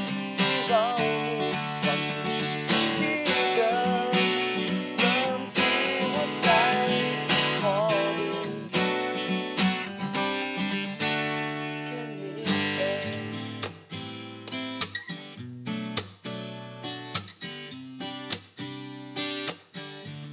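Acoustic guitar strummed in chords, with a singing voice carrying a wavering melody over it for roughly the first half. Later the strums thin out to spaced single strokes.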